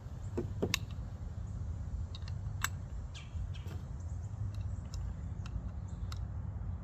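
A few sharp clicks and light taps of metal being handled as a CO2 cartridge is fitted into the grip of a Barra Schofield CO2 revolver, over a steady low rumble, with faint bird chirps in the background.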